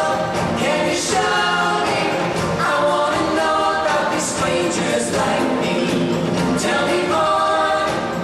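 Stage-show music with a group of voices singing phrases over the accompaniment.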